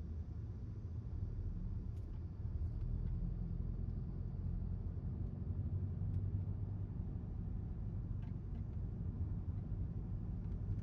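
Car driving along a road: a steady low engine and road rumble with a few faint ticks over it.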